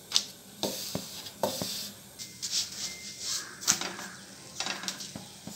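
Light, scattered knocks and taps of a rolling pin and thin dough sheets being handled on a floured counter and a flat griddle, with a faint hiss between the taps.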